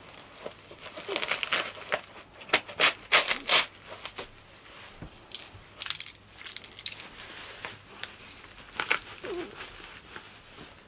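Tactical plate-carrier vest being put on and adjusted: a run of short rasping rips and rustles of nylon fabric and straps, densest a few seconds in, with a few more later.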